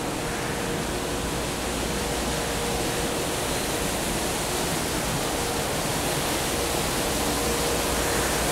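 Rice polishing machines running: a steady, even rushing noise with a faint steady hum, growing slightly louder near the end.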